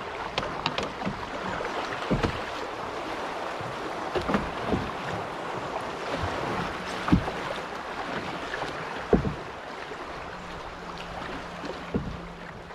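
Fast-flowing river water rushing and splashing around an open canoe as it is paddled, with a few sharp knocks from the paddle strokes, the loudest about seven and nine seconds in.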